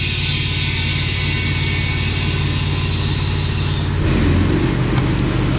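Air compressor running steadily while compressed air hisses into a Cheetah bead-seater tank. The hiss cuts off a little before four seconds in as the compressor keeps running, and a sharp click follows about a second later.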